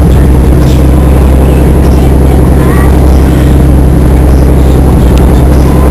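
A pleasure boat's engine running steadily at cruising speed, a loud, even low hum.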